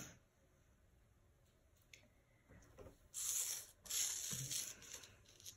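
A sheet of Canson 140 lb cold-pressed watercolour paper being slid and turned on a wooden tabletop: two papery scrapes about three seconds in, the second one longer.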